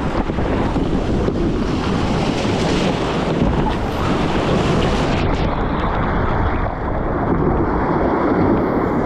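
Breaking surf churning over rocks and around a sit-on-top kayak, with water splashing over the boat and wind buffeting the microphone. About five seconds in, the hiss drops away and a duller rushing goes on.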